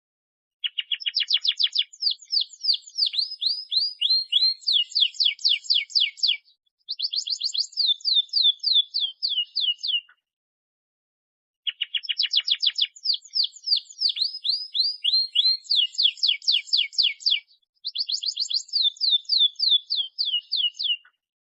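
Domestic canary singing a long, fast 'gacor' song of rolling trills, each made of rapidly repeated sweeping notes. It sings two bouts of about nine seconds each with a short silent gap between them, and the two bouts look identical, like a looped recording.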